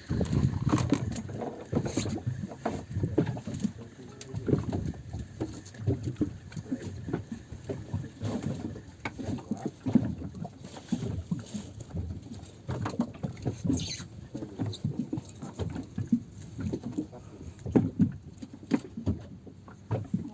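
Water slapping and lapping against the hull of a small boat, with irregular knocks and splashes.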